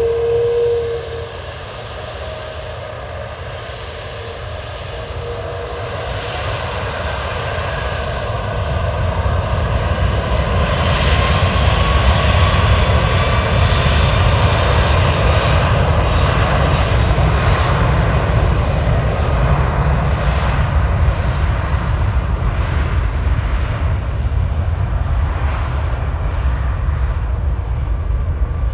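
Airbus A330-200F cargo jet's twin turbofan engines at takeoff power, a roar that builds over about ten seconds and then holds steady, with a faint whine rising in pitch in the middle. A brief steady tone stops about a second in.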